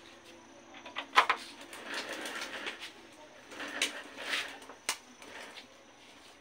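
Metal clicks and scraping as a motorcycle front fork tube is worked into the steering clamps by hand, with a sharp knock about a second in and another click near the end.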